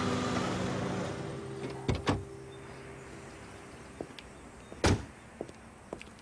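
A dark SUV's door unlatches with two sharp clicks about two seconds in and is slammed shut just before five seconds. Light footsteps on pavement follow, while a low hum fades away over the first few seconds.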